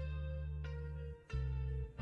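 Background music with plucked guitar notes over a steady bass line.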